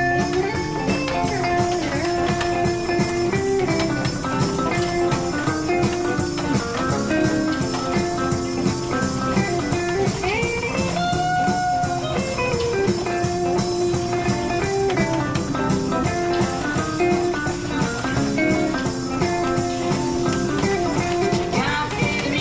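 Instrumental break of a blues-tinged rock and roll song: guitar playing sustained, bending notes over a band backing.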